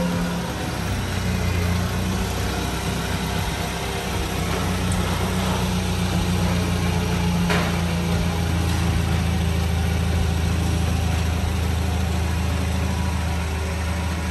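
Propane forklift engine idling steadily. One sharp knock about halfway through.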